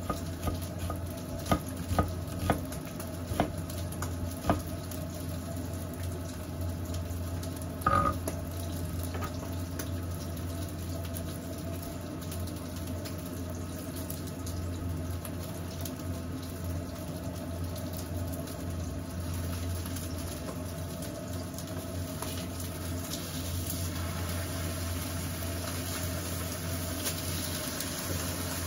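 Home cooking at the stove: a few sharp knocks of a knife on a wooden cutting board in the first five seconds, a short metallic clink about eight seconds in, then sliced onion frying in a pan, its sizzle growing louder over the last few seconds as it is stirred with chopsticks. A steady low hum continues throughout.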